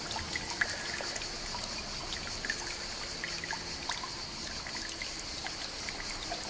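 Water trickling and lapping in a shallow rock pool, with many small drip-like splashes.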